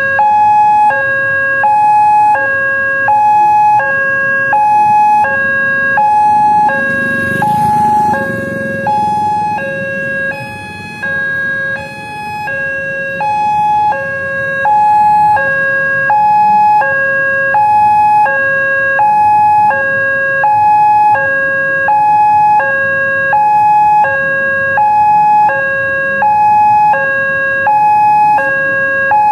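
Railway level-crossing warning alarm sounding its electronic two-tone chime, alternating a low and a high note about once a second without a break: the signal that the crossing is closed for an approaching train. A vehicle passes close by about seven seconds in.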